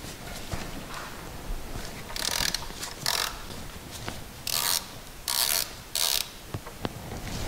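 Hand ratchet on an extension clicking in about five short runs as it is swung back and forth, backing out a 15 mm oil drain bolt.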